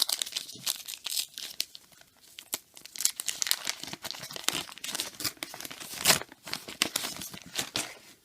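Paper wrapper of a trading-card pack crinkling and tearing as it is handled and opened: a dense run of irregular crackles that stops abruptly near the end.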